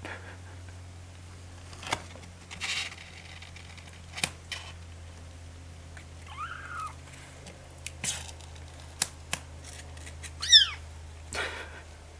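Two-week-old kittens squirming and wrestling in a blanket-lined cardboard box: scattered scratches, rustles and taps of tiny claws and bodies, with two brief high mews, the louder a quick falling squeak near the end.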